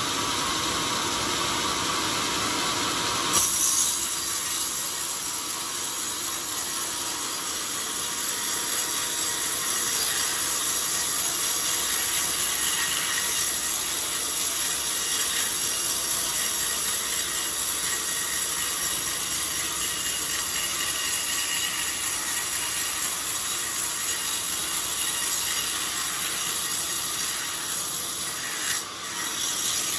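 Large band sawmill blade ripping lengthwise through an old, very hard coconut-palm log: a steady, loud sawing noise with a strong high hiss. The noise steps up sharply about three seconds in as the blade bites into the log.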